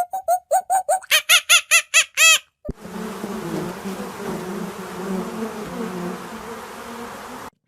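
A bird gives a fast run of short, repeated calls, about five a second. After a click, steady insect buzzing takes over for most of the rest, like bees or flies, and cuts off near the end.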